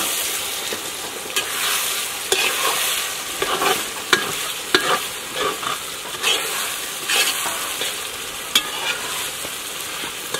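Potato greens sizzling in a large pot while a metal spoon stirs them, with irregular scrapes and knocks of the spoon against the pot.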